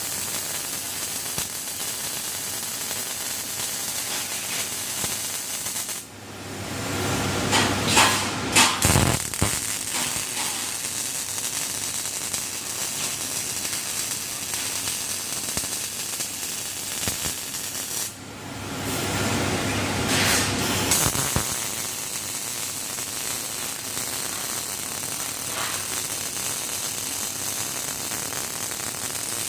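Robotic arc welding on rectangular steel pipe: a steady crackling hiss from the welding arc, with breaks about 6 and 18 seconds in where the sound drops and changes before the hiss resumes.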